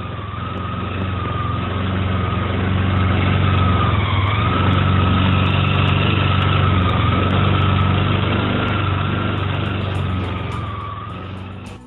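Honda Giorno Crea (AF54) scooter engine running with a steady low hum and a high, slightly wavering squeal over it. This is the kyuru-kyuru noise of a worn-down oil pump drive gear, a fault that can starve the engine of oil and lead to seizure.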